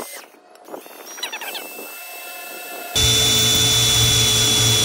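Power drill with a 1/8-inch bit drilling a pilot hole through the enamelled steel lid of a Weber kettle grill. After a few quieter clicks, the drill starts suddenly about three seconds in and runs at a steady whine.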